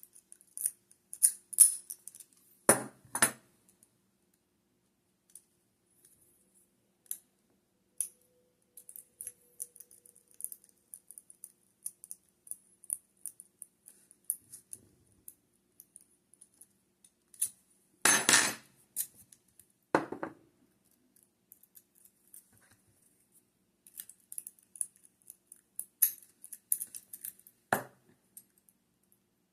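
Lock picking with a rake pick and tension wrench: quick, scratchy metal ticking in spurts as the rake is worked across the pins, broken by four louder clacks of metal on metal spread through the stretch.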